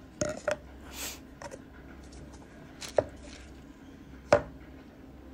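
Handling noise from a crafter working with a tub of caulk and supplies on a table: a few sharp taps and clicks spread a second or more apart, with a brief rustle about a second in.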